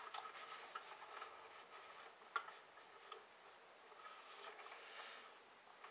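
Faint handling of a plastic airsoft gun's stock: small clicks and rubbing as it is worked, with one sharper click about two and a half seconds in.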